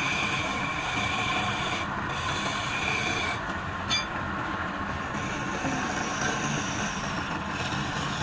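Wood lathe running, with a turning tool rubbing against the spinning wood: a steady scraping with a high squeal that breaks off and returns a few times.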